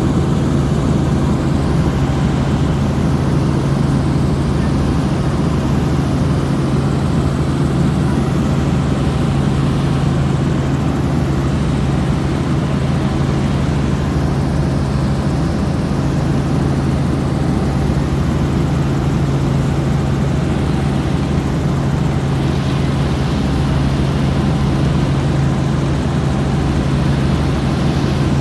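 Helicopter in steady flight: a loud, unbroken drone of engine and rotors with a constant low hum.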